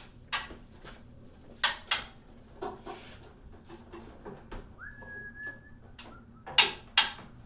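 A few sharp knocks and clicks, the loudest two near the end, and about five seconds in a single short, steady, high whistle-like tone.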